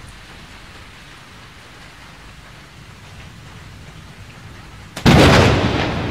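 Thunderstorm: a steady hiss of rain, then a sudden loud thunderclap about five seconds in that slowly dies away.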